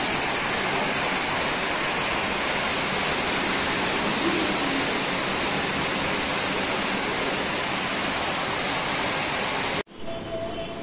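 Heavy rain pouring down steadily, a dense, even hiss that cuts off abruptly about a second before the end.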